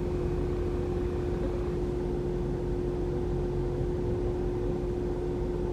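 Idling truck engine: a steady low rumble with a constant hum.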